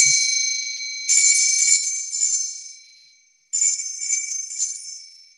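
Altar bells rung at the elevation of the chalice during Mass. The ringing of one shake fades at first, then the bells are shaken again about a second in and about three and a half seconds in, each ring dying away.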